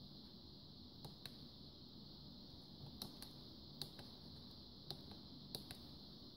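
Near silence with a steady faint high hiss, broken by about eight faint sharp clicks, fitting the buttons of an ImmersionRC RF power meter being pressed to step through its menu.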